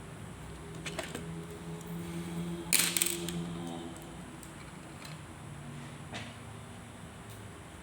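Light clicks and taps of small hard parts or tools being handled, with a cluster of sharper, louder clicks about three seconds in, over a low steady hum.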